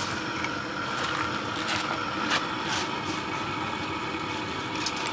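Steady roar of a propane burner firing a raku kiln, with a few sharp metallic clanks as tongs and metal reduction cans are handled.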